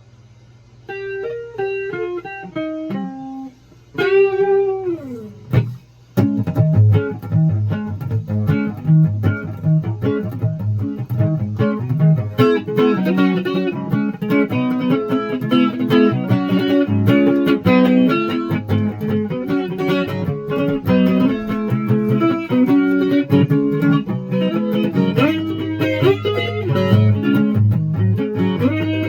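Guitar playing: a few single plucked notes, a note sliding down in pitch about four seconds in, then fast, busy picking from about six seconds on.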